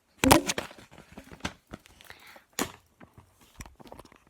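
A string of sharp clicks and knocks, like objects being handled and set down. The loudest comes just after the start, together with a brief vocal sound, and others follow at irregular intervals.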